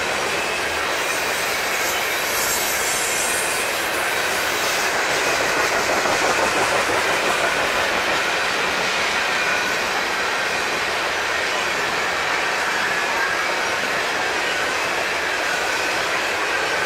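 Loaded tank cars of a freight train rolling past: the steady noise of steel wheels on rail, with a faint high wheel squeal wavering over it and swelling slightly about six seconds in.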